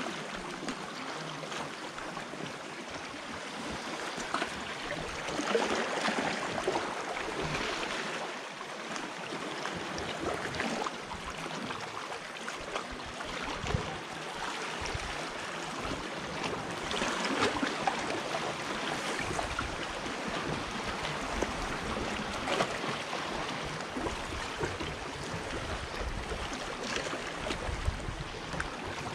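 Small sea waves lapping and washing against shoreline rocks, swelling every few seconds.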